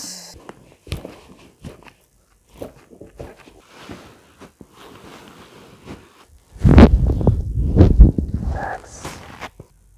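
Hands-on chiropractic adjustments: scattered soft clicks and taps, then about two seconds of heavy low thuds and rustling, about two-thirds of the way through, as the patient is gripped and lifted in a standing bear-hug adjustment.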